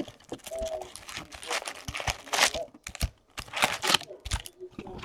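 Plastic wrapping on a box of trading cards crinkling and tearing in uneven bursts as it is pulled open by hand.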